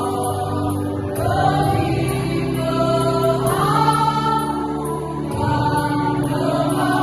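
Choir singing in several parts, holding long sustained notes that move together from chord to chord.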